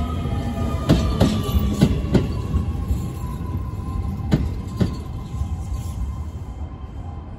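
Keio 7000 series electric train with Hitachi IGBT inverter drive pulling away, its wheels clacking sharply over rail joints and points in irregular clusters. A steady whine slides slowly lower, and the whole sound fades as the last car goes by.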